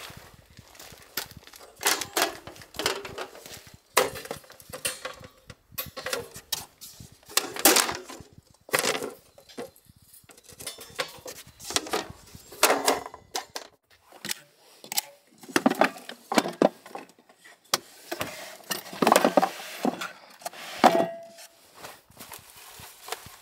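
Irregular knocks, clunks and clinks as camping gear is unloaded and set out: a wooden tabletop board and folding metal-frame tables are handled and set down. A brief squeak comes near the end.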